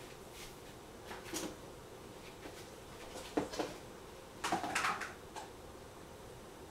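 A few short, irregular clattering knocks in a kitchen: one about a second in, a pair around three and a half seconds in, and a longer cluster around five seconds in, over a faint steady hum.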